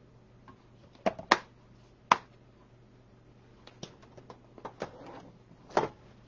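Hands handling paper card pieces and adhesive foam dots on a desk: a few sharp taps and clicks with a little paper rustle, the loudest about a second in, at two seconds and near the end.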